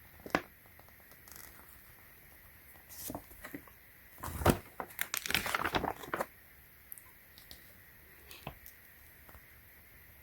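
Packaging being handled: a sharp tap near the start, then about three seconds of crinkling and rustling in the middle, with a few small ticks afterwards.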